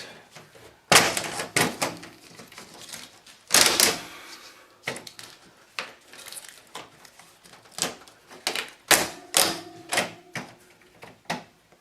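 Window air conditioner being shoved and rocked in its window frame: a string of irregular knocks, bangs and rattles, the loudest about a second in, near four seconds and near nine seconds. The unit won't come free because it is screwed to the window frame.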